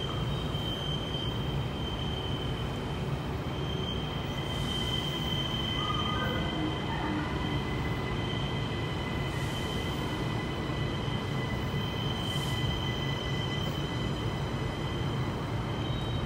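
Queensland Rail electric commuter train at the platform, running steadily: a low rumble with a thin, steady high-pitched whine over it.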